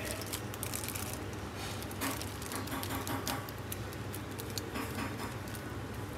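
A cotton pad wet with liquid green honing compound wiped back and forth over the smooth side of a leather strop: a run of soft, irregular ticks and scuffs over a steady low hum.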